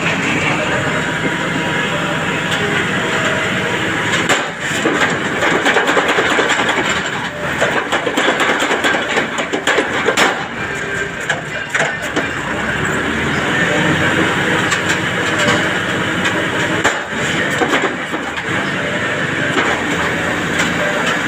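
Tractor-mounted drilling rig at work: a steady engine-driven noise with many irregular metallic knocks and clatter.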